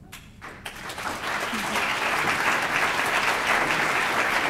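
Audience applauding, beginning just under a second in and swelling quickly to steady clapping.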